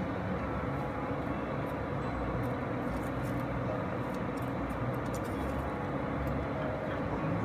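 A steady low rushing noise throughout, with faint light scrapes and ticks as metal tongs turn chicken strips in a dish of panko breadcrumbs.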